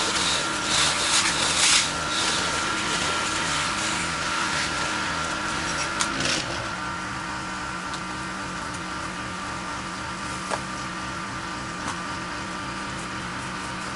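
Pressure washer's engine running steadily. For the first six seconds there is the loud hiss of water spraying from the wand, which stops with a click about six seconds in, leaving only the engine running.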